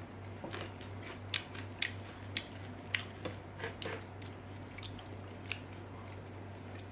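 Close-miked chewing of fried banana-stem chips: a string of sharp crunches, about two a second, that thins out near the end, over a steady low hum.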